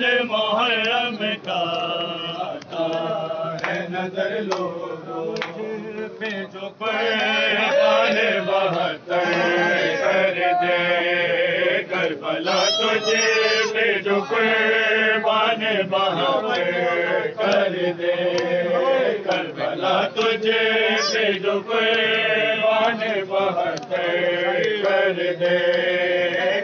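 Male voices chanting a Shia Muharram nauha in a continuous wavering melody, with regular sharp beats of matam, hands striking chests, cutting through the chant.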